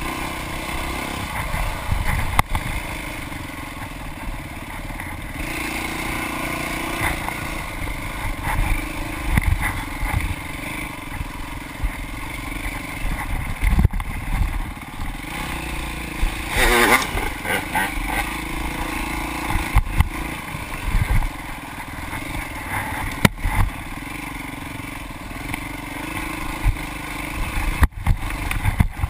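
Dirt bike engine running hard along a bumpy trail, its pitch rising and falling as the rider works the throttle and gears, with frequent knocks and clatter from the bike over rough ground. About seventeen seconds in there is a brief wavering burst of revs.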